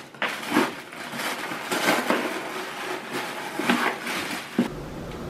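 Rustling and crinkling of paper and cardboard packaging being handled, with a few sharper knocks among the rustle. It stops abruptly near the end, leaving a steady low hum.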